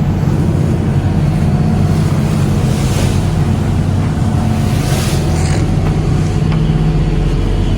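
Lobster boat's engine running steadily with a low, even drone, with wind and water noise over it and two brief hissing washes about three and five seconds in.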